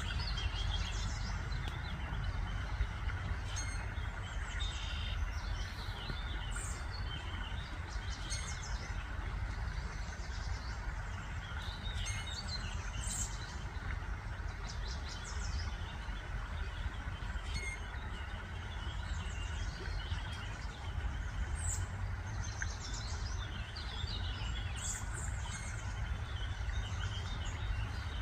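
Wild birds chirping and singing in short, repeated phrases over a steady low rumble.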